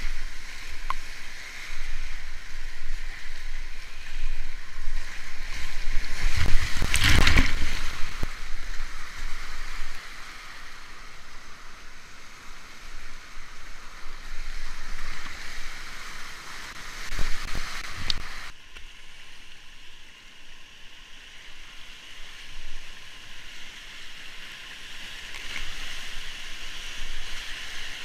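Brown whitewater rapids rushing and crashing around a kayak, with paddle and wave splashes against the boat. Two loud surges of crashing water, about seven and seventeen seconds in.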